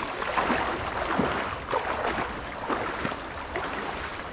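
Legs in waders wading through a shallow river current, the water sloshing and splashing around them in irregular surges over the steady rush of the stream.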